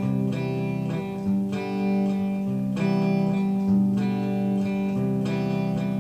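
Acoustic guitar music with strummed chords that change every second or so, an instrumental passage with no singing.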